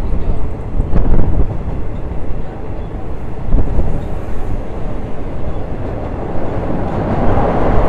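Third-class passenger train running, heard from aboard: a steady rumble of wheels and carriage on the rails, with a few knocks, growing louder near the end.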